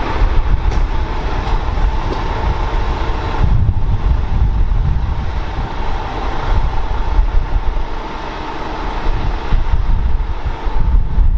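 A heavy vehicle's engine running with a deep, steady rumble, wind buffeting the microphone. No siren is heard.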